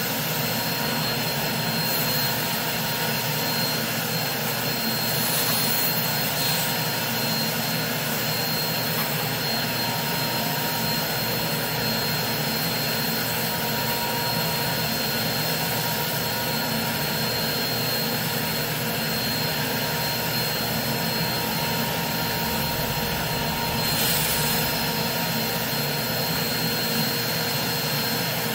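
Carpet extractor's vacuum running through a stainless floor wand as the wand is pulled across a wool rug. It makes a steady, loud rushing noise with a thin high whine, and a few brief hissing surges.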